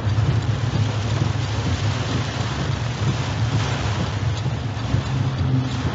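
Heavy rain hitting a moving car, with the steady hum of the engine and tyres on a wet road, heard from inside the cabin.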